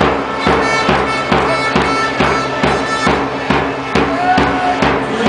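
Music with a steady drumbeat, a little over two beats a second, and held horn-like tones over it.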